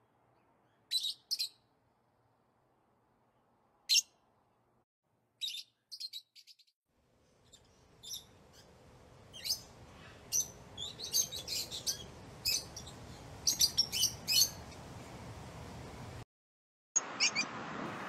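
Lovebirds giving short, sharp chirps: a few scattered ones in the first seven seconds, then a dense run over a rising background hiss. Near the end the sound cuts out for a moment and comes back with a louder hiss and a couple more chirps.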